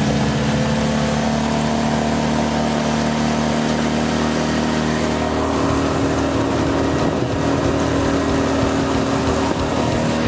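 Suzuki tiller outboard motor running steadily at speed, pushing a small boat, over an even hiss of rushing wake and wind.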